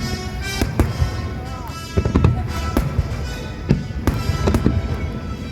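Fireworks shells bursting in a rapid series of sharp bangs, sometimes several a second, over music playing at the same time.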